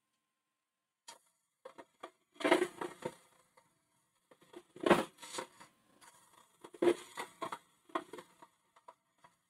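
Hollowing tool cutting inside a spinning holm oak hollow form on a wood lathe, in short irregular scraping bursts with near silence between them. The loudest cuts come a few seconds in, around the middle and about two-thirds of the way through.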